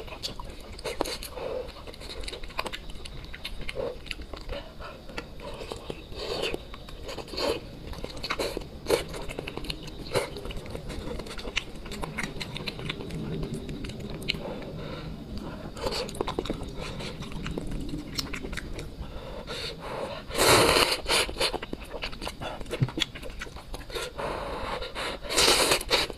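A person eating noodle soup: chewing and wet mouth smacks and clicks throughout, with two loud slurps of rice noodles, one about two-thirds of the way in and one near the end.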